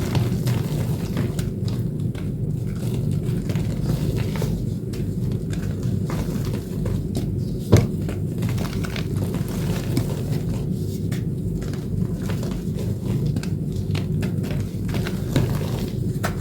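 Reformed blue chalk (chalk set with corn starch paste) being crushed and crumbled, a continuous run of small crackles and crunches with one sharper snap about eight seconds in, over a steady low rumble.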